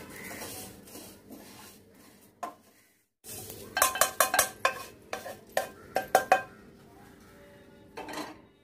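A spatula stirring shahjira seeds roasting in a little oil in a wok, a soft scraping. After a short break, a run of about ten ringing metallic clinks as a scoop knocks against a large metal pan of roasted spices.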